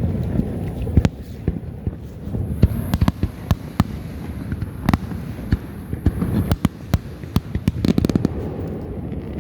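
Fireworks going off: many sharp bangs and pops at irregular intervals over a low rumble, with a high hiss in the middle.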